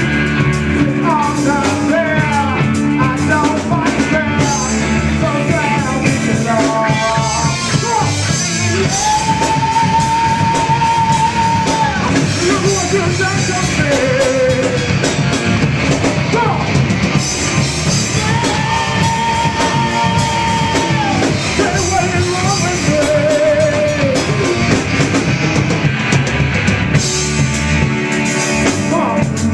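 Live rock band playing loudly: a male singer singing over electric guitars and a drum kit, with two long held notes about nine and eighteen seconds in.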